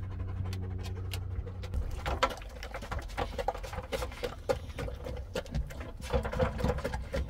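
A Belgian Malinois eating food from a stainless steel bowl: fast, irregular chewing, lapping and licking clicks.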